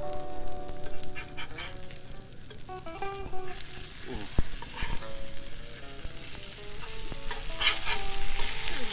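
Fish fillets sizzling and frying in an oiled skillet on a grill. Calm background music with sustained notes plays over the sizzle.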